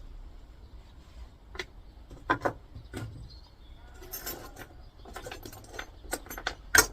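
Small brass pieces from an electricity meter clinking and rattling as they are handled and gathered together: a series of sharp clicks, with a brief rattle about four seconds in and the loudest clink near the end.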